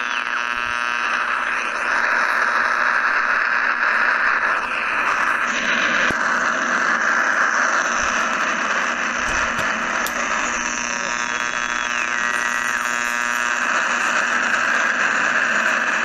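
Radio static between stations: a steady hiss with a buzz of steady tones under it, and a thin whistle that slides down in pitch about eleven seconds in.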